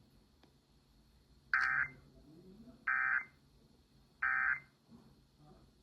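Emergency Alert System End of Message signal: three short, identical bursts of digital data tone, a little over a second apart, marking the end of the alert.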